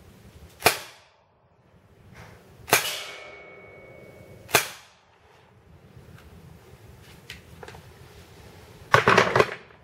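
Gletcher APS Stechkin blowback airsoft pistol firing three single shots about two seconds apart, each a sharp crack with the slide snapping back; after the second shot a thin metallic ring hangs for about a second and a half. Near the end, a quick cluster of loud cracks and clacks.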